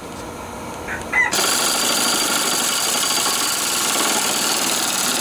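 Pneumatic impact wrench rattling on a mower blade nut, cutting in suddenly about a second in and then running steadily to loosen the 24 mm nut.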